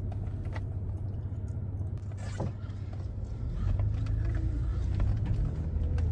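Steady low rumble of a truck running, with a few faint clicks.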